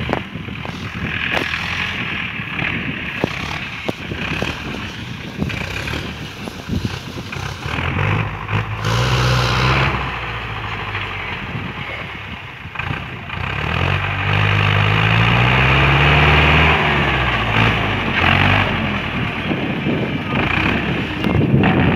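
Ursus tractor's diesel engine working under load while pulling a disc harrow, its pitch rising and falling as engine speed changes. It grows louder in the second half as the tractor comes close.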